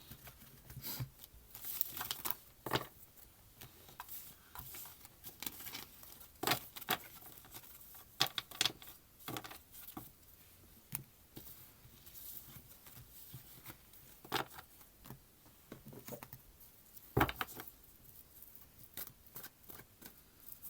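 Tarot cards being handled on a table: irregular soft slaps, taps and paper rustles as cards are moved and laid down.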